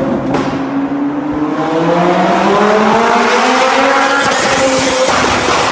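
Ferrari engine accelerating hard, its note rising steadily in pitch for about four seconds. About five seconds in the note breaks off and a rougher, noisier sound follows.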